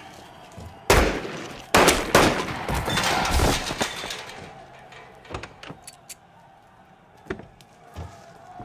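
Loud sharp bangs: two single ones about a second apart, then a dense run of cracks and rattling that fades out over the next couple of seconds, followed by a few fainter knocks.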